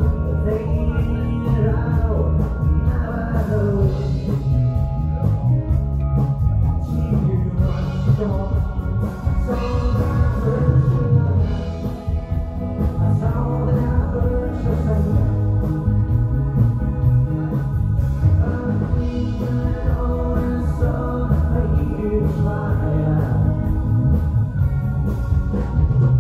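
Live band playing amplified music, with a lead singer over guitars and keyboard.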